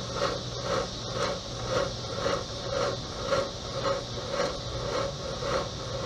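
Homemade smoke machine, converted from a fog machine, running and pushing smoke into an engine's intake through a vacuum line: a steady low hum with a rhythmic pulse about twice a second.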